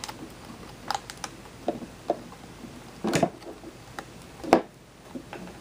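Irregular small plastic clicks and taps as a cable connector is worked by hand into a video doorbell unit, with a sharper knock about four and a half seconds in.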